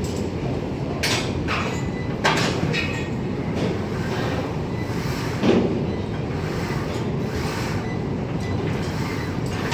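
Steady low rumble of a moving vehicle, with scattered sharp clicks and knocks, the strongest a little past two seconds in and again around five and a half seconds.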